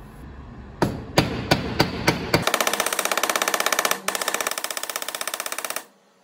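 Ball-peen hammer flattening solder wire on a steel bench block: six separate blows about a third of a second apart, then a very fast run of ringing metallic taps that stops abruptly near the end.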